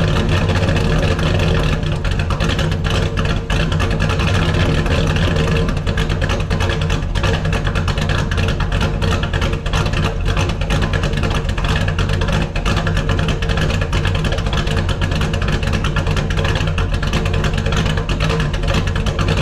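1970 Dodge Challenger's 440 big-block V8 idling steadily through its exhaust, warming up after a cold start.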